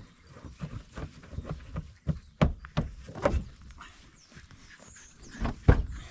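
Irregular knocks and thumps in a dog kennel as old carpet is put inside. The loudest knocks come at about two and a half, three and five and a half seconds in.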